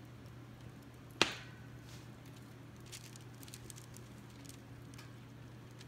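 A single sharp knock with a short ringing tone about a second in, then a few faint scattered ticks and crackles over a low steady hum.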